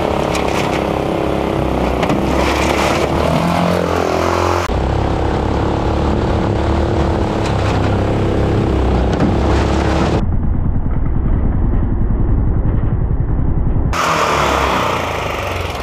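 Long-tail mud motor's small air-cooled engine running hard, driving an aluminium boat up through shallow rapids. Its pitch rises and dips briefly a few seconds in, and the sound turns abruptly duller and brighter again several times, the dullest stretch lying between about ten and fourteen seconds in.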